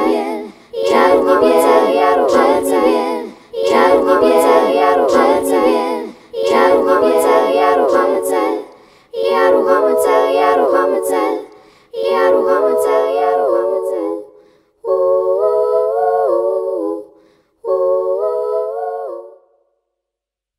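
Layered a cappella vocal loops played back by a Boss RC-505 loop station: a girl's stacked harmonies repeat the same sung phrase about every three seconds. About fifteen seconds in, the upper layers drop out and the last two repeats are thinner. The loop stops shortly before the end.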